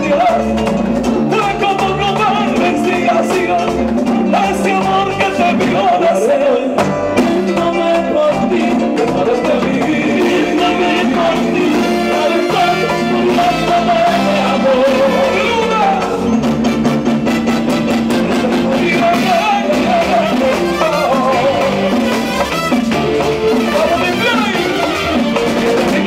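A live Latin dance band playing, with a male lead vocal over drums, timbales and other percussion.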